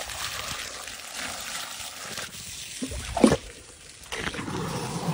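Water splashing and trickling around an elephant's trunk as it draws up water to drink, with a sharp, loud splash about three seconds in.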